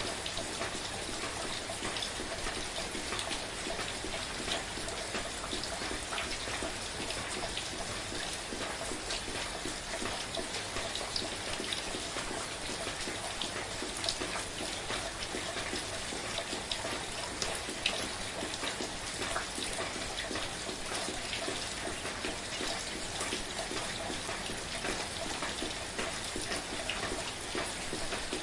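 Steady gentle rain, an even hiss of falling water with many small drop ticks scattered through it.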